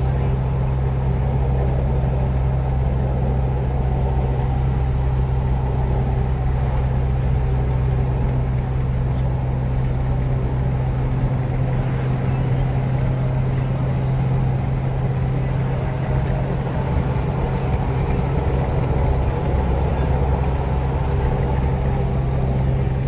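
Steady cabin noise of a car cruising on a highway: a low engine hum with road and tyre noise.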